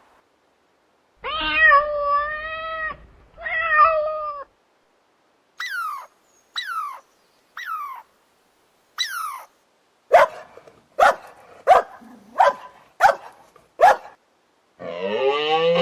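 Cat meowing: two long wavering meows, then four short falling mews, then a quick run of six short, sharp calls.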